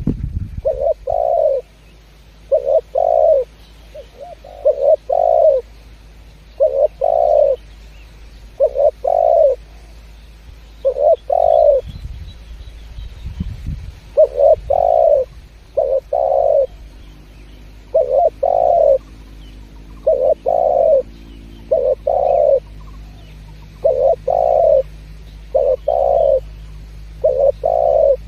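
Spotted dove (tekukur) singing persistently: repeated short coos, often two or three notes close together, each phrase spaced a second or two apart, with a faint low hum beneath.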